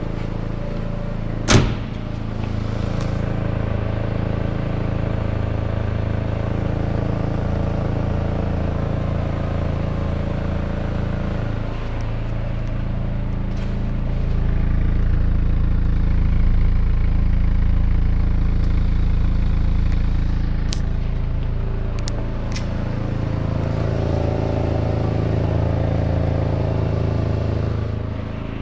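Audi A3 engine running steadily, heard through its exhaust, with a sharp click about a second and a half in and a few short clicks around 21 to 22 seconds. Its low rumble gets louder from about 14 to 20 seconds. The owner reports a strange noise from the exhaust.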